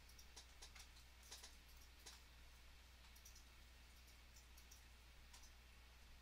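Near silence: a scattering of faint, irregular computer mouse clicks over a low steady hum.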